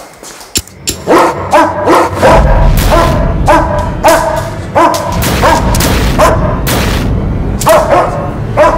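A dog barking repeatedly, about a dozen sharp barks from about a second in, over a low steady rumble that starts about two seconds in.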